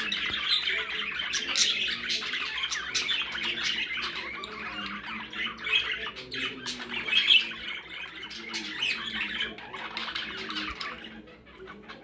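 Young budgerigars chirping and squawking in a dense, continuous chatter of overlapping calls, thinning out and fading near the end.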